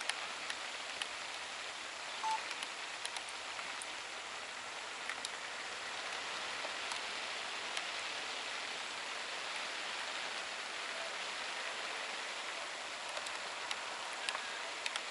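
Steady hiss of rain falling, with scattered light taps of drops. A single short beep about two seconds in.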